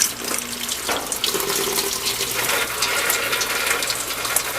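Water running in through a washing machine's solenoid water inlet valve, a steady rush with faint whistling tones coming and going. All signs point to the inlet valve as the cause of the noisy, intermittent water intake.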